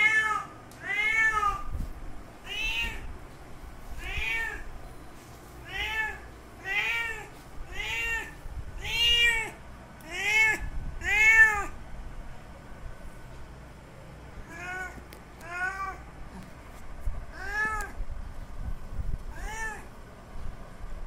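Male cat's mating calls: a series of about fourteen drawn-out meows, each rising then falling in pitch, a second or so apart. After a pause of about two seconds midway, the calls come more sparsely and more faintly.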